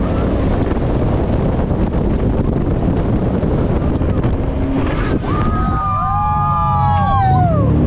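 Jet boat running at speed, its engine mixed with rushing water and wind buffeting the microphone. About five seconds in, several passengers scream together for about two seconds, the cry falling away at the end.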